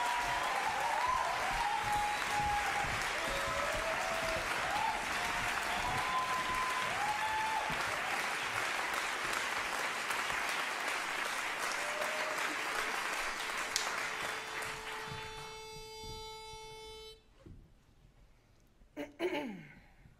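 Audience applauding and cheering, dying away about fifteen seconds in. Then a single steady note sounds for a second or two, the pitch pipe giving a barbershop quartet its starting pitch, followed near the end by a short falling vocal sound.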